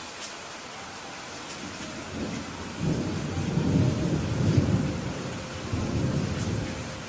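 Steady rainfall with a rolling thunder rumble that builds about two seconds in, swells twice and dies away near the end.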